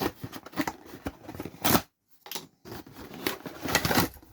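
Irregular rustling and clicking of a boxed, coiled ethernet cable and its packaging being handled, with a brief pause about two seconds in.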